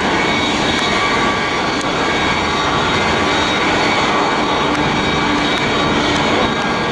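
Jet airliner engines running steadily: a loud, even noise with a few faint steady whining tones through it.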